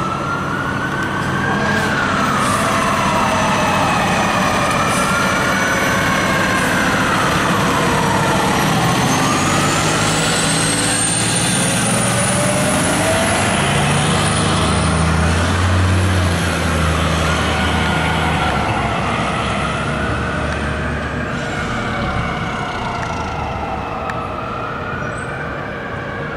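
Fire apparatus sirens wailing, overlapping wails rising and falling every two to three seconds. Midway the diesel of a 2007 American LaFrance Eagle pumper, a Detroit Diesel Series 60, is heard under them as it pulls away.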